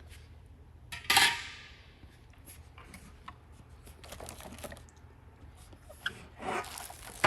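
A metal desk-frame part set down with a clank that rings briefly about a second in, followed by quieter handling and scraping of parts, and a few more knocks near the end.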